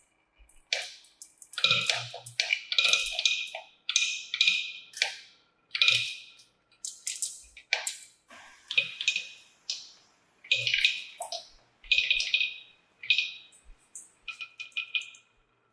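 Marbles clicking and clattering down a plastic marble-run slope, in a quick run of short rattling bursts with brief gaps between them.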